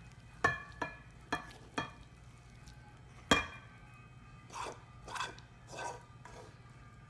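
Tableware clinking: four quick clinks, each with a short ring, in the first two seconds, a louder one a little past three seconds, then three softer ones.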